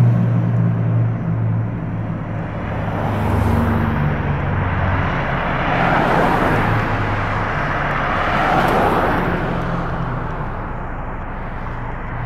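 Fire engine's diesel engine running with a low, steady drone as the pumper moves off and idles up the street. Road noise swells twice, about six and nine seconds in.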